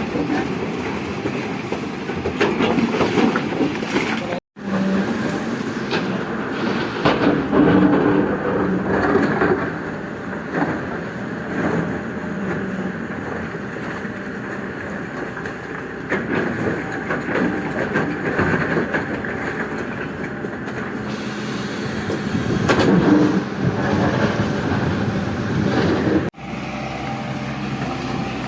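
Diesel engine of a JCB JS215 tracked excavator running steadily under load while digging, with repeated metallic clanks and knocks from the bucket and arm. The sound drops out for an instant twice.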